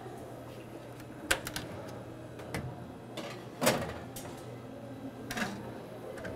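A metal baking tray clicking and clanking as it goes onto the rack of a countertop electric oven, and the oven's glass door being pushed shut, with a single louder knock a little past halfway. A faint steady low hum runs underneath.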